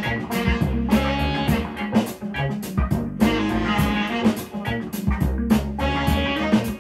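Recorded music, guitar over bass and a drum beat, played back through KEF LS50 bookshelf speakers and heard in the room.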